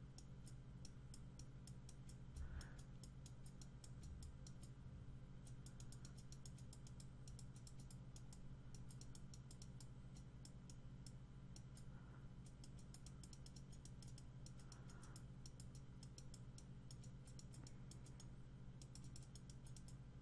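Faint, rapid clicking at a computer, in quick irregular runs, from mouse and keyboard use, over a low steady electrical hum. A soft low bump about two and a half seconds in.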